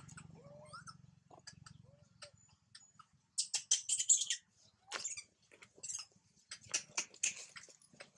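Dry leaf litter rustling and crackling in short irregular bursts, loudest a few seconds in, with a few faint short squeaks in the first two seconds.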